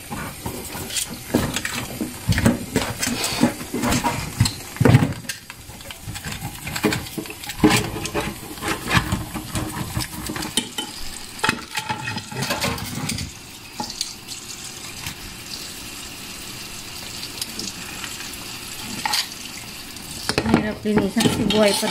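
Live crabs being handled in a pot with a little water: repeated knocks, clatter and scraping of shells against the container with some splashing, easing to a quieter steady hiss for several seconds before the clatter returns near the end.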